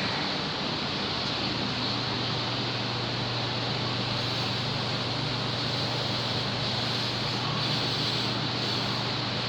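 Steady machine noise: an even hiss over a constant low hum.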